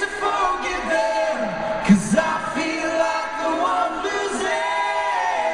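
Live band music with a singer holding and sliding between sustained notes, heard from the audience in an arena.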